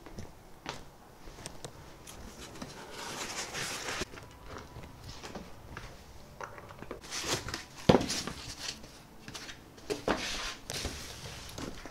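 Cardboard and foam packing pieces being pulled out of a shipping box, with rustling and scraping in several stretches and a sharp knock about eight seconds in.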